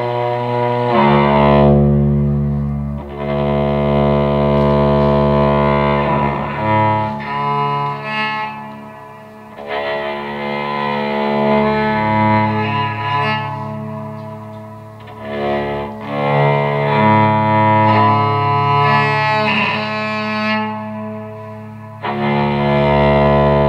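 Electric cello bowed in long, held low notes, several pitches sounding together, the loudness swelling and dipping between phrases.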